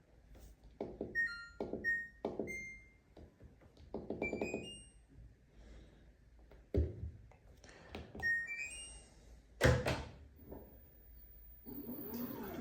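Control panel of an LG WT16WV6 top-load washing machine beeping as its buttons are pressed to set a rinse-only cycle: short electronic beeps, a few in rising steps, among soft clicks and thunks, with one louder knock near the end.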